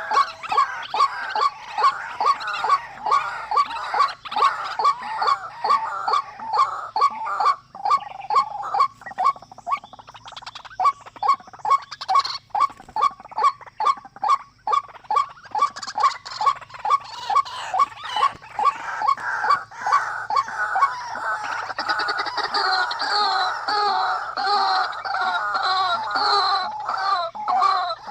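Bird calls: short notes repeated rapidly and evenly, about four a second, growing busier and overlapping in the last third.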